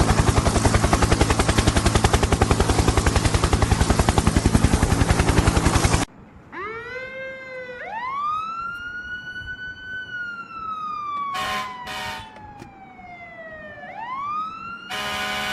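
Loud, fast, even chopping noise that cuts off abruptly about six seconds in. A siren effect follows, wailing up and down in long slow sweeps, with two short horn honks around the twelfth second and another near the end.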